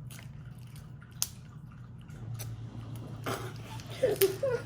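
Someone chewing crunchy pork rinds: a few sharp, scattered crunches over a steady low hum, with a short murmur near the end.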